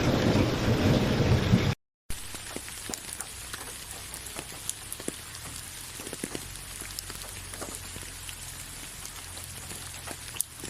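Heavy rain with a deep thunder rumble, cut off by a brief dropout about two seconds in. It then gives way to lighter, quieter rain in which single drops click sharply on a surface.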